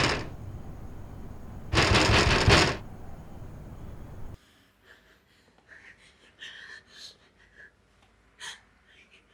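A woman's heavy, panicked breathing: two loud rushes of breath about a second each, with a quieter breathy noise between them. The sound cuts off suddenly after about four seconds, and only faint small breaths and rustles follow.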